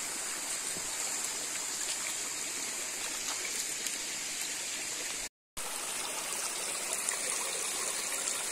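Hill stream flowing over rocks: a steady rushing of water, cut by a brief silent dropout about five seconds in.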